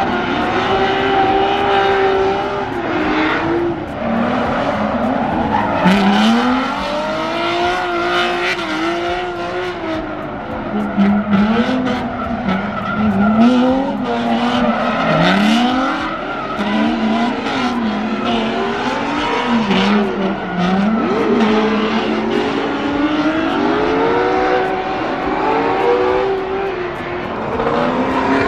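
Drift cars sliding around a track, their engines revving hard with the pitch rising and falling over and over as the drivers work the throttle, with tyres screeching through the slides. At times two engines are heard at once, running in tandem.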